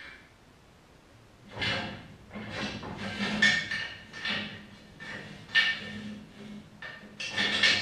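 A chain hoist being pulled hand over hand to lift a small-block Chevy engine block. Its chain clatters and clinks in repeated strokes, starting about a second and a half in, roughly one stroke a second, over a steady low hum.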